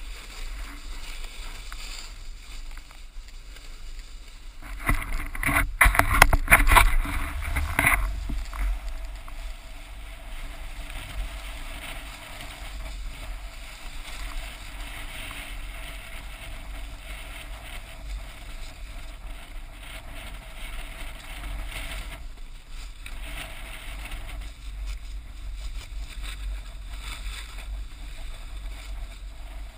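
Snowboard sliding over packed snow: a steady scraping hiss from the board, with a louder, rougher stretch of scraping and knocks about five to eight seconds in.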